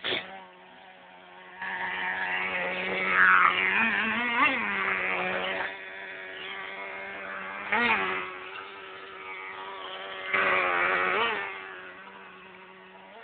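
Small fuel-burning engine of a radio-controlled monster truck, buzzing steadily. It revs up briefly several times as the truck is driven, and is loudest in the first few seconds.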